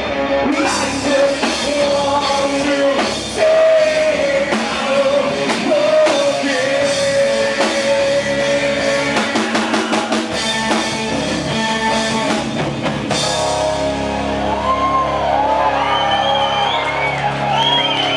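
Rock band playing loudly, with drums, guitar and a singing voice. About two-thirds of the way through the sound changes, with wavering high notes over the band near the end.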